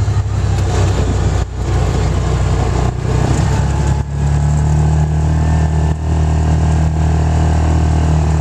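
Yamaha Rhino side-by-side's single-cylinder engine running under throttle as it drives through snow, dipping briefly a few times as the throttle eases.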